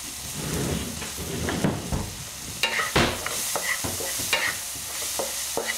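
Food sizzling in a wok while a wooden spatula stirs and scrapes it, with a few sharper scrapes and knocks against the pan in the second half.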